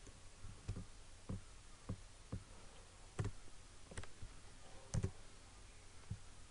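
Computer mouse button clicking: a string of separate single clicks at an irregular pace, about one every half second to a second.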